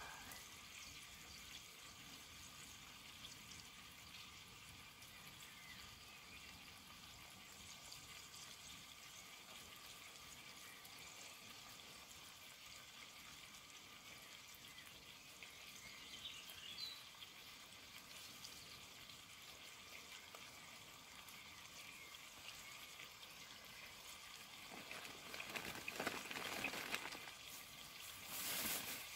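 Faint steady hiss of a pot cooking on a camping stove, with a brief faint chirp about halfway through. Near the end come louder handling noises as chicken legs are added to the pot.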